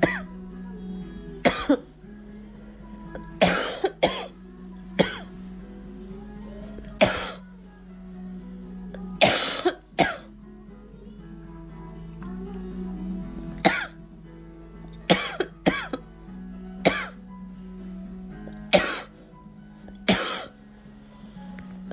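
A girl coughing over and over: about a dozen short, sharp coughs, single or in pairs, one to three seconds apart. Background music with long held low notes plays under them.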